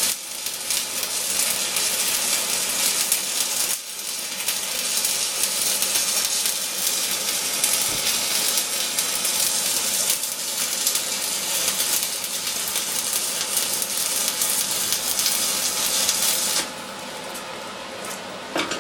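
Stick (shielded metal arc) welding with a 7018 1/8-inch electrode on a steel T-joint: the arc crackles and sizzles steadily, breaks briefly about four seconds in, then stops about three seconds before the end, followed by a couple of metal clinks.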